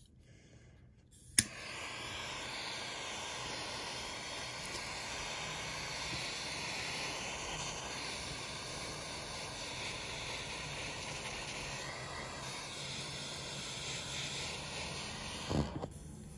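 A small handheld torch lighter clicks once about a second and a half in, and its flame then hisses steadily. The hiss stops near the end with a couple of knocks.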